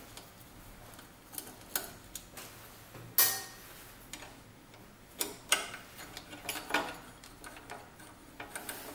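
Screwdriver backing out the small screws that hold a planer's analog depth-indicator pointer: irregular light metal clicks and ticks, the loudest about three seconds in and coming more often in the second half.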